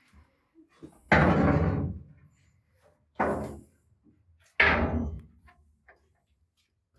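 Three loud thumps, about a second in, about three seconds in and just before five seconds, each starting sharply and dying away within a second.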